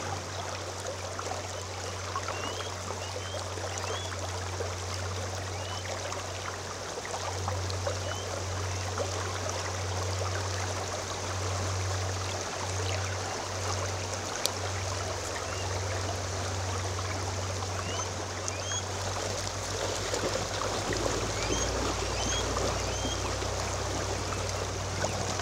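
Steady rush of flowing river water from the Deschutes River, with a few short bird chirps near the start and again in the second half, over a low steady hum.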